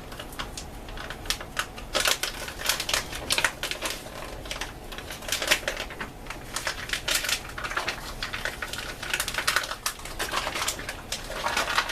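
Plastic MRE drink pouch crinkling and crackling in quick irregular clicks as it is sealed and handled after being filled with water.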